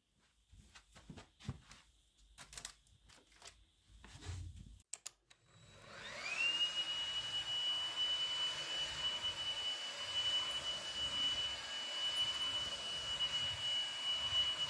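Cordless stick vacuum cleaner switching on about halfway through, its motor whine rising quickly to a steady high pitch, then running on carpet. Before that, a few soft taps and rustles.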